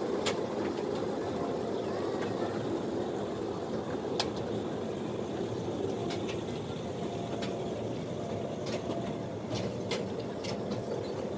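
Small cars of a children's track ride running along their rail: a steady running noise with scattered light clicks.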